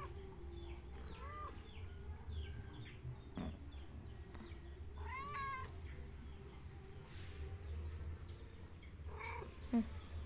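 Domestic cat giving a few short meows while it is being stroked, the clearest one about five seconds in.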